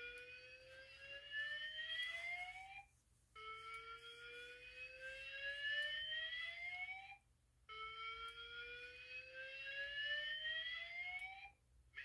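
Simplex TrueAlert fire alarm speaker strobe sounding a slow whoop evacuation tone: three slow upward pitch sweeps, each lasting nearly four seconds, with a short break between them.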